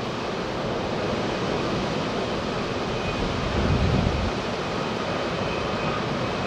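Four Progress D-18T turbofan engines of an Antonov An-124-100M running as the freighter rolls on the ground after landing: a steady jet roar with a faint high whine. A low rumble swells briefly about three and a half seconds in.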